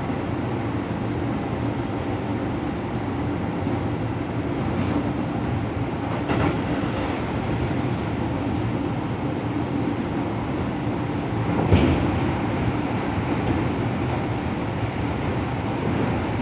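Keio 7000 series commuter train running, heard from inside the carriage: a steady rumble of wheels and running gear on the rails. A few short, sharp knocks break through it, the loudest about twelve seconds in.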